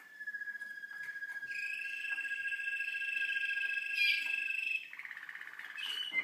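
Young Waterslager (Malinois) canaries singing: long, held whistled notes, two birds overlapping for a few seconds, breaking into a fast rolling trill about five seconds in.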